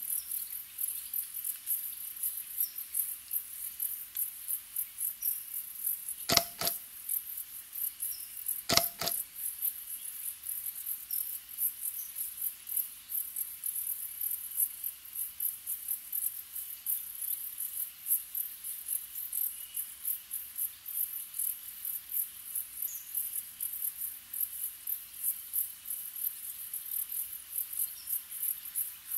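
Crickets chirping in a high-pitched, rhythmic pulse, several chirps a second, with no pause. Two sharp cracks sound about two seconds apart, a third of the way in.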